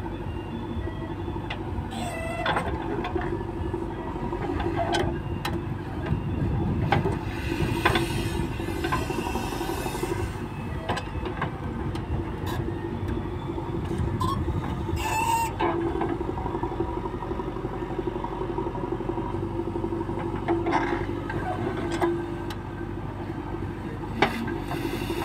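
JCB 3DX backhoe loader's diesel engine running steadily under load while the backhoe arm digs and swings soil, with scattered clanks and knocks from the bucket and boom.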